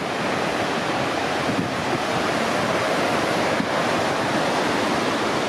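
Steady rush of falling water from Mystic Falls, a multi-level cascade on the Little Firehole River.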